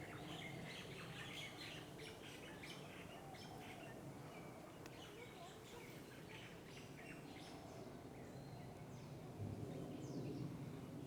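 Faint birdsong in tropical forest: many short chirps and whistled notes from several birds, over a steady low background noise, with a brief low bump near the end.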